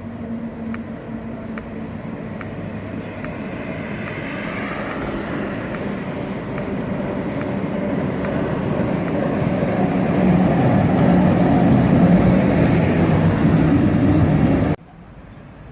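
Historic tram running along its track, the running rumble growing steadily louder as it comes closer, with light regular clicks about twice a second at first and a faint high wheel squeal in places. The sound cuts off abruptly near the end.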